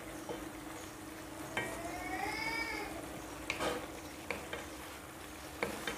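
Wooden spatula stirring chicken pieces in a thick, reduced tomato and soy sauce in a nonstick pan, with light sizzling and several sharp knocks of the spatula against the pan. A short rising-then-falling tone sounds about two seconds in.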